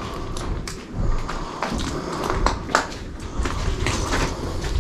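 Footsteps on a debris-strewn floor: irregular small clicks, knocks and crunches over a low rumble.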